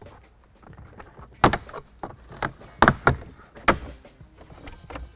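Plastic dash trim strip below the radio of a 2021 Ford F-150 being pried off, its retaining clips letting go in a series of sharp snaps and clicks. The three loudest come about one and a half, three and three and a half seconds in.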